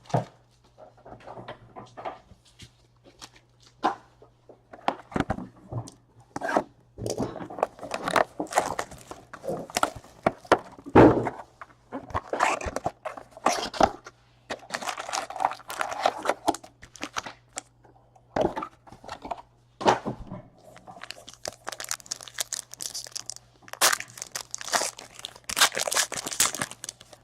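Trading-card pack wrappers being torn open and crinkled, with cards being handled and set down, in irregular bursts of crackling and light knocks.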